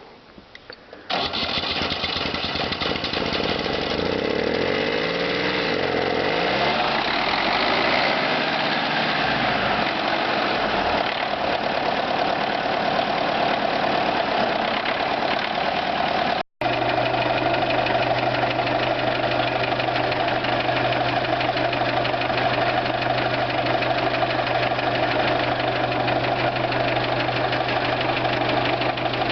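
T-74 crawler tractor's diesel engine starting about a second in and running, its pitch rising and falling for several seconds. After a brief break past the halfway point it runs loudly at a steady pitch.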